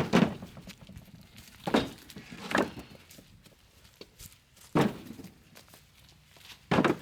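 Split firewood knocking as pieces are dropped onto a stack: five separate knocks, one to two seconds apart.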